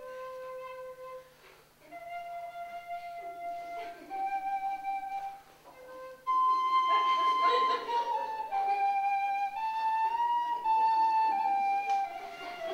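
A small flute plays a slow melody of long held notes that step up and down, growing louder about six seconds in.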